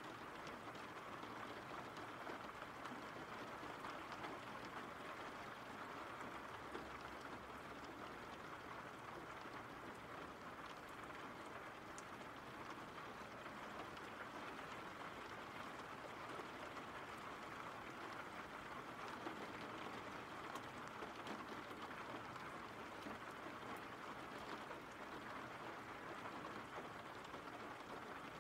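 Steady rain falling: an even hiss of drops with faint scattered ticks of single drops.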